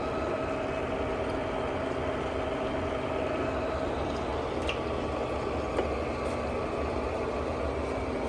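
Mazak Hercules Ajax manual lathe running steadily with its power longitudinal feed engaged: a continuous gear-train hum with a steady whine over it, and a couple of faint ticks around the middle.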